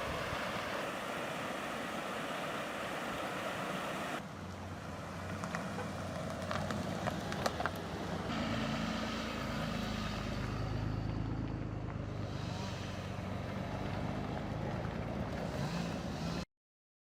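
Outdoor field audio of wind-like rushing noise, then after two abrupt cuts a motor vehicle engine running with its pitch rising and falling. The sound cuts off suddenly near the end.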